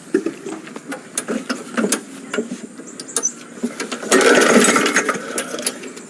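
Lawn mower being pull-started: scattered clicks and knocks, then about four seconds in a louder two-second pull as the engine turns over without catching, because the mower is out of gas.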